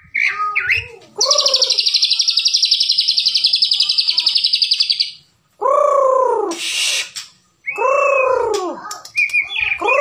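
White-rumped shama (Bahorok murai batu) singing: a few short phrases, then a rapid, even trill of about ten notes a second for about four seconds, then a run of arched, down-slurred whistles.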